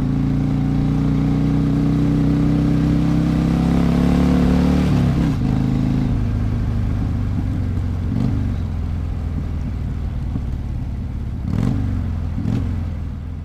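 Harley-Davidson motorcycle engine running, its pitch climbing slowly for about five seconds as it speeds up, then dropping back lower. Several short throttle blips follow, two of them close together near the end.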